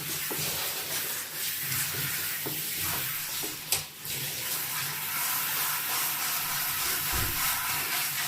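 Hand-held shower spraying water steadily while a dog is rinsed in a bathtub, with one sharp knock nearly four seconds in.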